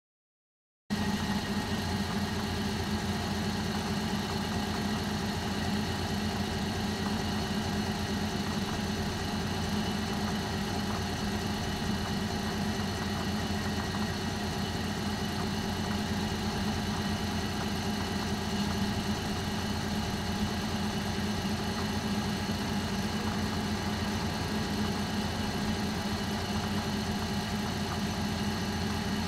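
Bus engine idling steadily. It cuts in abruptly about a second in and then runs on with no revving.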